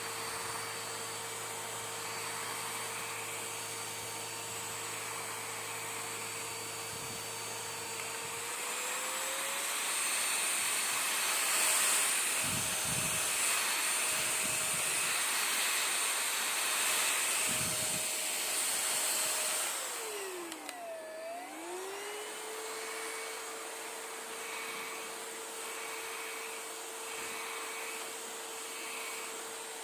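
Airbot CV100 cordless stick vacuum running with a steady motor whine. About eight seconds in, the whine steps up in pitch and gets louder. About twenty seconds in, it dips sharply in pitch and then climbs back to its first speed.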